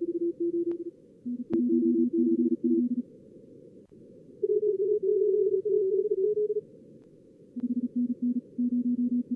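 Morse code (CW) sent at contest speed in SkookumLogger's practice mode, in bursts that alternate between a higher and a lower pitch. This is the interleaved audio of two radios. Band-limited receiver hiss runs underneath, with a few faint clicks.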